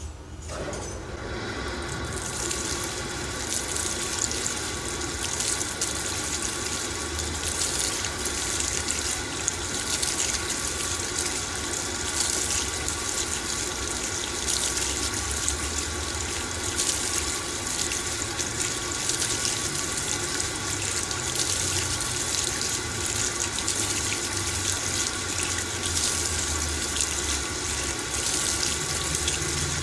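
LG TurboDrum top-load washing machine filling with water: water starts pouring into the drum about a second in and runs on steadily, with a low hum from the machine underneath.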